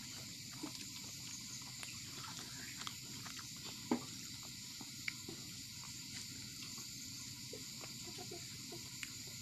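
Close-up eating sounds: roti being torn and chewed with semolina, with scattered soft clicks and one sharp click about four seconds in, over a steady high hiss.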